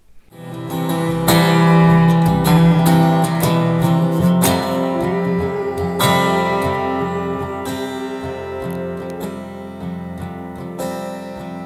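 Guitar music: chords strummed and left ringing, starting about a second in and slowly fading towards the end.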